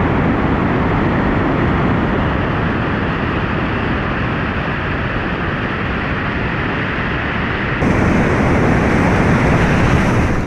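Rushing white water of river waterfalls: a loud, steady roar of falling and churning water heard close up from a kayak. About eight seconds in it suddenly turns louder and brighter.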